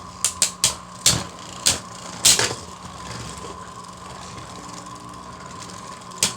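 Helios Volcano and Rage Longinus Beyblade tops spinning against each other in a stadium: a steady whir broken by several sharp clacks of the tops striking in the first two and a half seconds, then a quieter stretch of spinning and another clack near the end.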